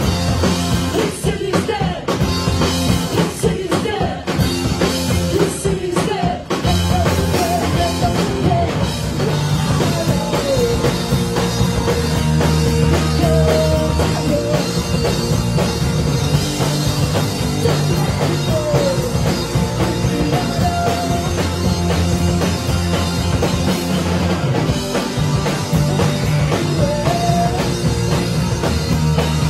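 A rock band playing live: electric guitars and a drum kit over a steady bass line.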